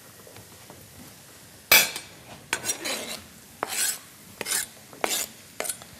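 A kitchen knife scraping sliced tomatoes off a plastic cutting board into a frying pan. The first scrape comes sharply after about a second and a half, followed by a string of shorter scrapes and clinks.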